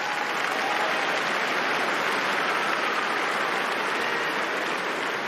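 Tennis stadium crowd applauding steadily, with some voices cheering through the clapping.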